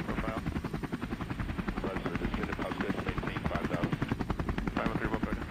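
Helicopter running with a fast, steady rotor chop.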